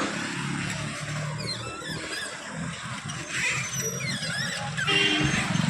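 Road noise while riding along on a bicycle: a steady low rumble of traffic, with scattered high squeaks and chirps.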